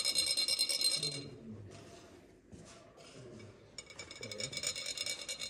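Metal chak-pur sand funnel being rasped: a rod rubbed along the ridged cone sets it buzzing so that fine coloured sand trickles out onto the mandala. A high, fine rasp that stops about a second in and starts again near the end, with faint low voices beneath.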